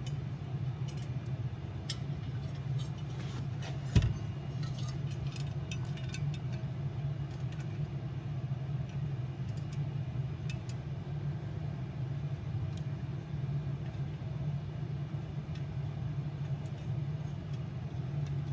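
Small metal clicks and clinks of bolts and parts being handled and fitted on a diesel heater's combustion assembly, with one sharper knock about four seconds in, over a steady low hum.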